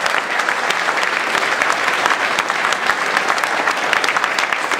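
Audience applauding: many hands clapping steadily, a dense patter of claps throughout.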